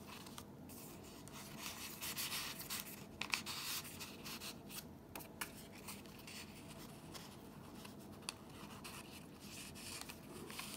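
Paper cards and tags rustling and sliding as they are handled and drawn out of a paper pocket in a handmade junk journal, with small irregular scrapes and taps, busiest a couple of seconds in.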